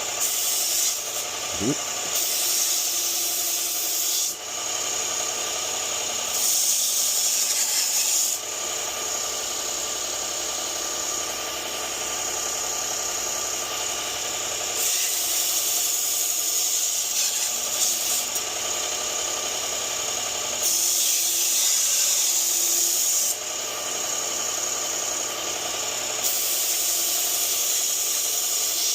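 1x30 belt grinder running, with a Global kitchen knife's steel blade drawn across the belt in repeated passes. Each pass gives a louder grinding hiss of a few seconds over the steady belt noise. This is the first sharpening step, raising a burr along the edge.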